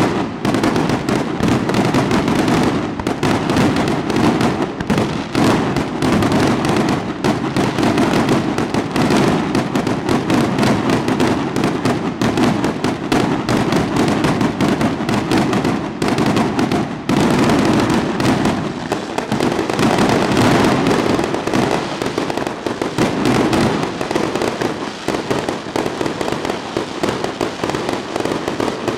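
Fireworks display in full barrage: a continuous, dense run of bangs and crackles with no pause.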